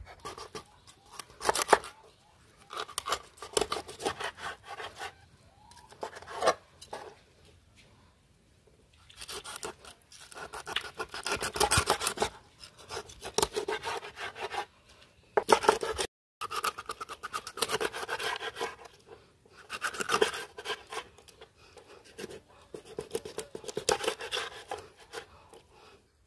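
A knife sawing crosswise through a catla fish to cut it into steaks: rasping, scraping strokes of the blade through the fish's body. The strokes come in bursts of a few seconds with short pauses between.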